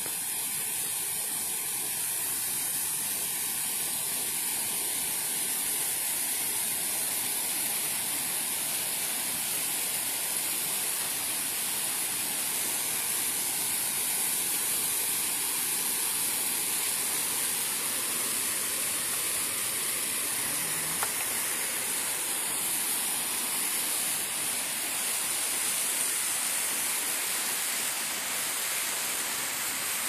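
The Cascada Spumoasă waterfall pouring down rock ledges: a steady, even rush of falling water.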